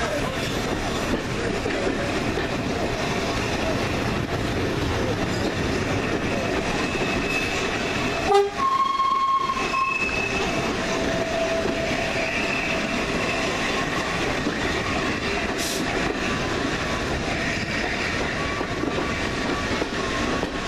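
Steady rumble and wheel clatter of a heritage train running slowly along the line, heard from the open window of one of its carriages. A locomotive horn sounds once, about eight seconds in, for about a second and a half.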